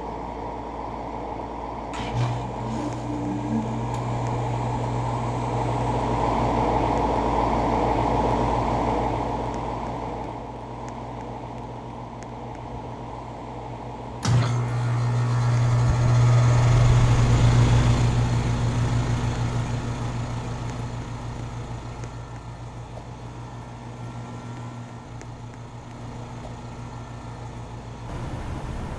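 LG Multi V 5 air-conditioning unit running with a steady machine hum. It starts with a click about two seconds in and swells and fades, then clicks and swells again about halfway through.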